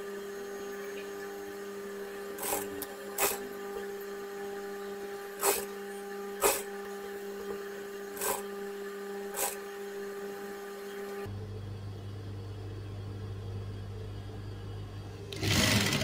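Sewing machine humming steadily, with a few sharp clicks scattered through it and a short, louder burst of noise near the end.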